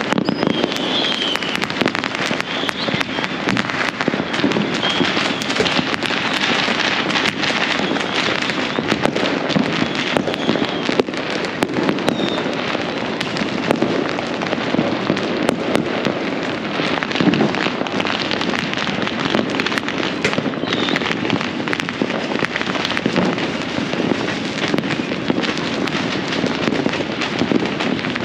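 Massed fireworks and firecrackers going off all over a city, countless overlapping bangs, pops and crackles blending into one continuous din, with a few short high whistles among them.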